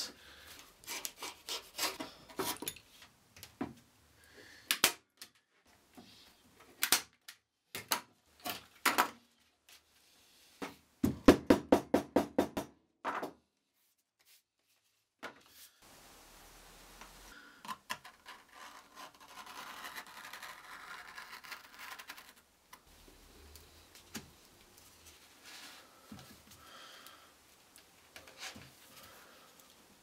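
Hand work with leather and small tools on a wooden workbench: scattered knocks and taps, with a quick run of about a dozen sharp strikes a third of the way in. After a brief gap, softer scratching and rubbing as a pencil and steel ruler mark out the leather.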